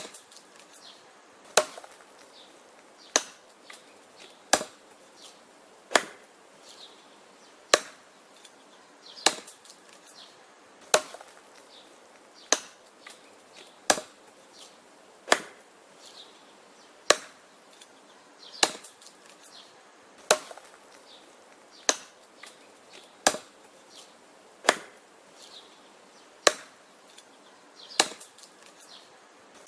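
Wood being chopped in a steady rhythm: one sharp chop about every one and a half seconds, with faint lighter knocks between the blows.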